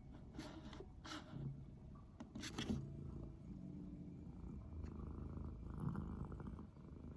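Domestic cat purring steadily in a low rumble, with a few sharp clicks in the first three seconds.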